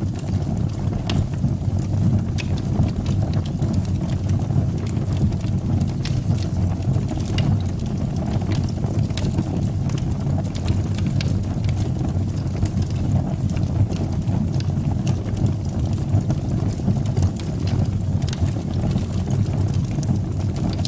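Fire burning in a fireplace: a steady low rumble of the flames with scattered faint crackles and pops.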